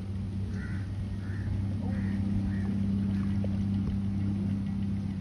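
Boat motor running steadily, a low even drone that swells slightly about two seconds in.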